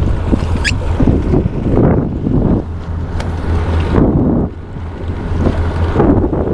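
Wind buffeting the microphone over small waves lapping against a small boat's hull, a steady rough rumble with irregular surges. A short rising squeak sounds about half a second in.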